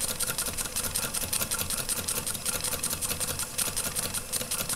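Weeden No. 14 toy steam engine running steadily under steam, with a rapid, even clicking.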